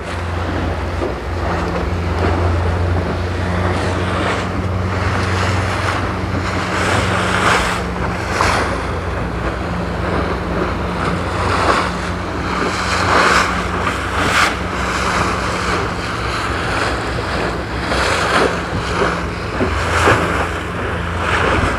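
Motorboat engine running steadily under way, with rushing water and wind buffeting the microphone in surges every few seconds.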